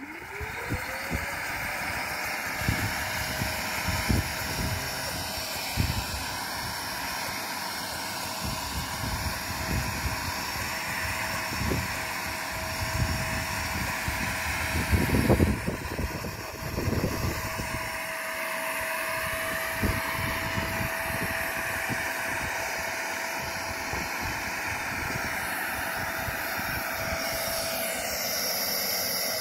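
Pond vacuum switched on, its motor spinning up with a rising whine and then running steadily. Water and debris are sucked through the hose from the pond bottom with irregular gurgles and clicks, heaviest about halfway through. The motor starts to wind down at the very end.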